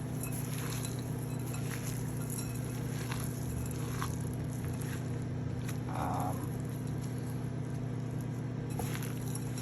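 Hands mixing ground meat, rice and chopped onions in a bowl: soft squishing with faint ticks about once a second, over a steady low hum. A short tonal sound comes about six seconds in.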